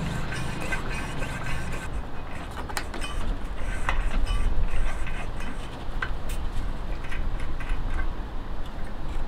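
Light clicks and knocks of a Coleman 286A gasoline lantern being handled, its fuel valve knob turned, over a steady low rumble.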